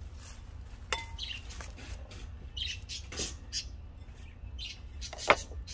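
Plastic scoop digging and pouring potting soil into a ceramic bowl pot, with scraping and rustling strokes. There is a ringing clink about a second in and a sharp knock near the end, the loudest sound.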